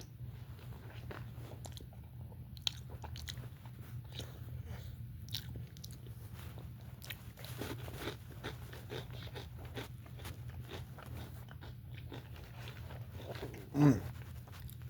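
Close-up chewing and biting of a bacon, egg and cheese bagel sandwich with crispy bacon, heard as many small crunching clicks over a steady low hum. Near the end there is one brief, louder sound that drops in pitch, like a short voice sound.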